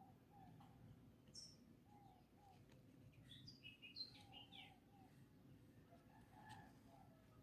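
Faint background birdsong: a short low call repeated every second or so, with a burst of higher chirps about halfway through.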